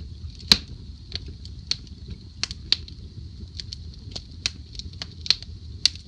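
Log fire burning in a glass-fronted fireplace: a steady low rumble of flame under irregular crackles and pops, the sharpest pop about half a second in.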